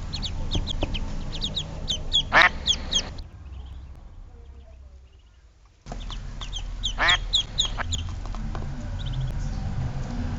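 Young poultry (ducklings or chicks) peeping in quick, high chirps, with a louder drawn-out call twice. The sound fades away about a third of the way in and comes back abruptly after a few seconds.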